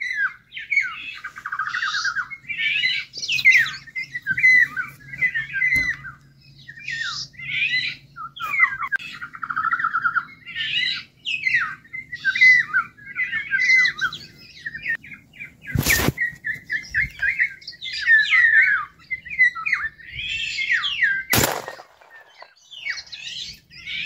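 Continuous bird calls and whistled song, fluting phrases mixed with harsher squawks, played by an electronic bird caller as a lure for golden orioles. Two short sharp knocks cut through, about two-thirds of the way in and again some five seconds later.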